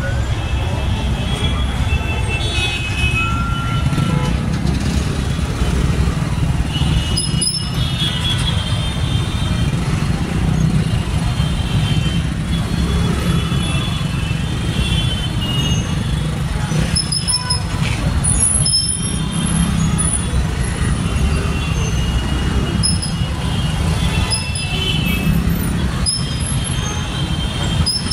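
Dense, stop-and-go road traffic: a steady low rumble of idling motorcycles, cars and trucks, with vehicle horns tooting briefly at intervals.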